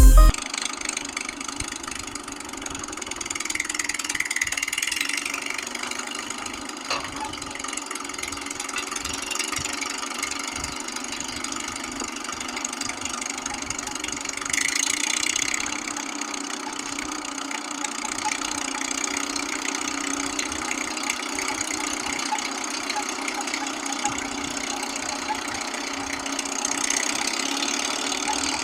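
An engine idling sound, steady, thin and with no deep bass, rising slightly in level now and then.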